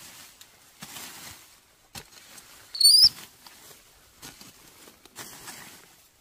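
A baby monkey giving one short, high-pitched, wavering squeak about halfway through, the loudest sound, with soft rustling and a few light knocks around it.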